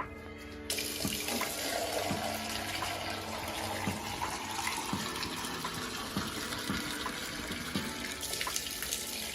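Water pouring into a bucket of soap mixture, starting about a second in and running steadily until near the end: the last litre of water being added to make up the five-litre batch.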